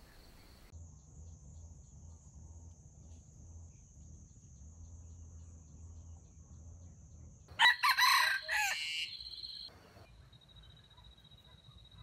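A rooster crows once, loudly, for about two seconds starting about two-thirds of the way in. A faint steady high-pitched drone runs underneath.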